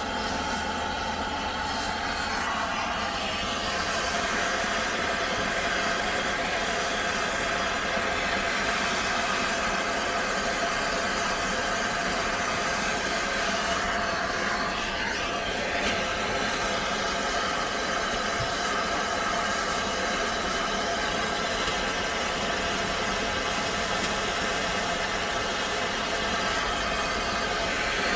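Steady mechanical running noise with a hiss and several steady tones, shifting slightly about two seconds in.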